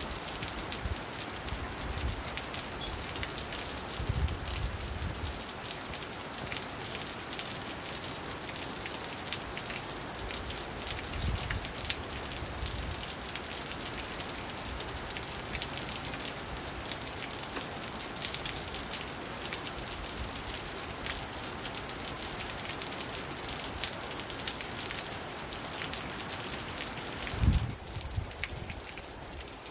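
Steady rain falling on pavement and parked vehicles, an even hiss with a few brief low rumbles. Near the end there is one sharp low thump, after which the rain sounds duller and quieter.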